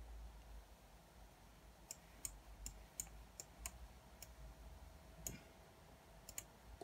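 A handful of faint, irregular clicks of a computer mouse over near-silent room tone, most of them between two and four seconds in and two close together near the end.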